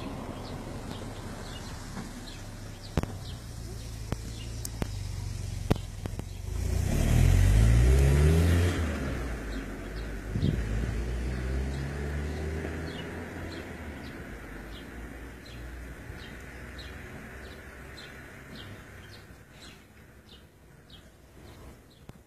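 A motor vehicle driving past: its engine swells to its loudest about seven seconds in, rising in pitch, then slowly fades away. Faint bird chirps repeat throughout.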